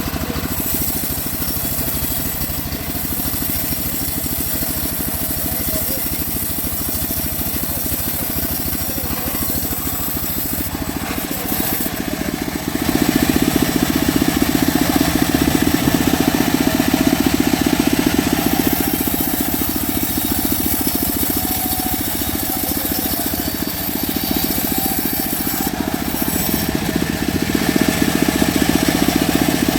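Homemade bandsaw mill running steadily while sawing mahogany. It gets noticeably louder about halfway through and again near the end.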